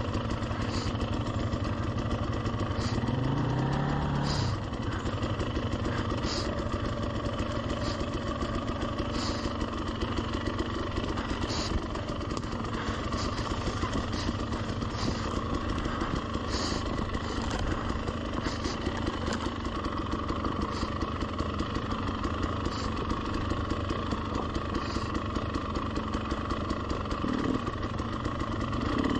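300cc two-stroke enduro dirt bike engine running at low revs while creeping along a trail, with a brief rev that rises and falls about three seconds in.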